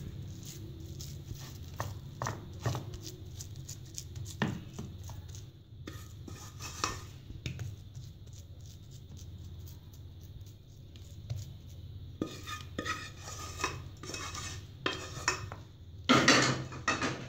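Wooden spoon scraping and knocking against a tray as soft semolina barfi mixture is spread and pressed flat, in scattered strokes with a louder run of scraping near the end, over a steady low hum.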